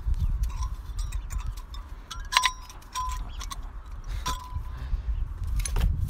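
Sharp metallic clinks, about three, each with a brief ring, from a VW Polo MK5 front brake caliper and brake pads being handled and fiddled into place, over a low rumble.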